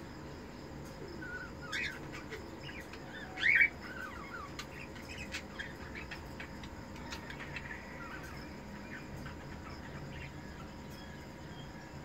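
Ino cockatiels chirping, with two louder calls about two and three and a half seconds in, the second the loudest. Softer chirps are scattered through the rest.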